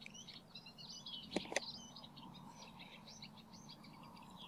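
Faint birdsong, a steady run of quick high chirps. About a second and a half in come two light clicks close together, as a plastic hook box is set down on the tackle tray.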